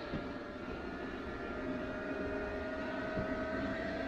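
Ninja air fryer's fan and the Anker SOLIX C1000 power station's cooling fans running hard under a load of about 1600 watts: a steady rushing whoosh, "like a jet's taking off", with whining tones that creep up in pitch as it slowly gets louder.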